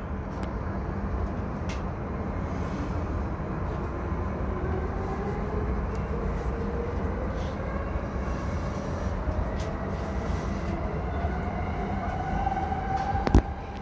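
Yamanote Line electric commuter train accelerating away from a station, heard from inside its rear cab: a steady low running rumble under a motor whine that rises slowly in pitch. There is one sharp knock near the end.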